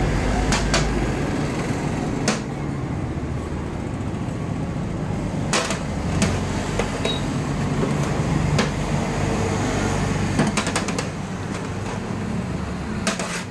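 Irregular sharp metallic taps and clicks of a steel cylinder mould and tin tray being handled on a steel worktable while soan papdi pieces are pressed and set down, with a small cluster of quick taps near the end. A steady low hum runs underneath.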